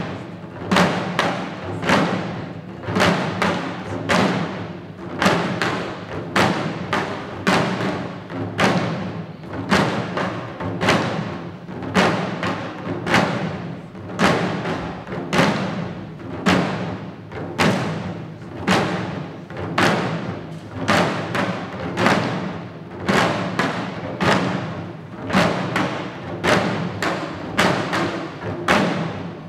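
Chest-slung taiko drums of shishi odori deer dancers beaten with thin sticks in a steady, repeating beat, a strong stroke about once a second with lighter strokes between.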